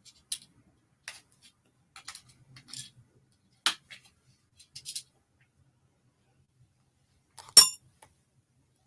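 Small hard parts of a studio easel clicking and clinking as they are handled and fitted by hand: a string of light clicks, with one sharper, louder click near the end.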